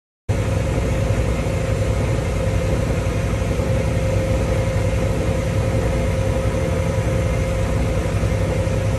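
Boat engine running steadily underway: a loud, even low rumble with a steady mid-pitched whine over it, cutting in just after the start.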